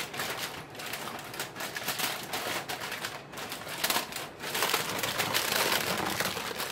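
Aluminium foil crinkling and crackling as it is pressed down around the food by hand, a dense run of small crackles.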